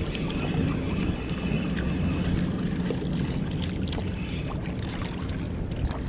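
Spinning reel being cranked steadily as a hooked fish is reeled in, under a constant wind rumble on the microphone.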